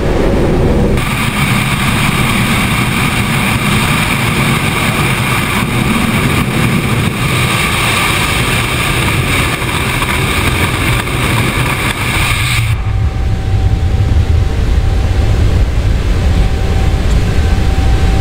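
Boeing 777 just after takeoff: loud rushing airflow and engine noise heard from the landing-gear bay as the gear is retracted and the bay doors close. About 13 seconds in it cuts to the steadier low rumble of the flight deck in the climb.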